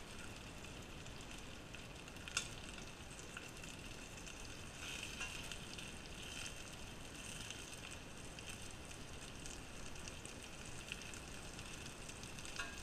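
Breaded pollock goujons sizzling steadily as they fry in hot oil in a frying pan, with one short tap about two seconds in.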